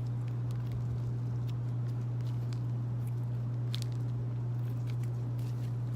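Clear slime with foam beads being squished and pressed by hand, making faint sticky crackles and clicks. A steady low hum runs underneath and is louder than the slime.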